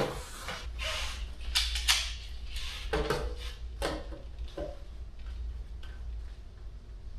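Small metal pieces being handled on a workbench: scattered clinks and short scraping rubs, over a low steady hum.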